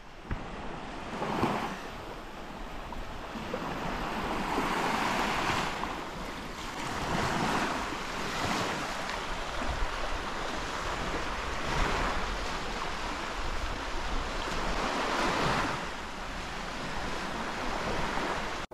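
Small sea waves breaking and washing up a sandy beach, the hiss of the surf swelling and falling back every few seconds.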